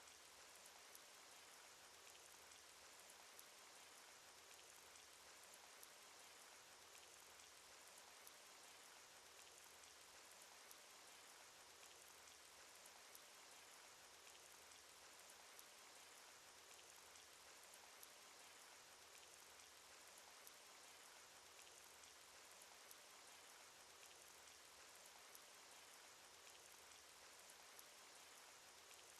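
Faint, steady cartoon rain sound effect: an even hiss of falling rain dotted with many small, sharp drop ticks.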